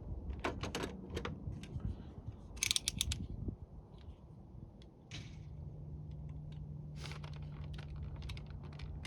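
Scattered sharp metal clicks and light knocks of tools and fittings being handled while undoing fuel line fittings, with a short rattle about two and a half seconds in. A steady low hum comes in about five seconds in.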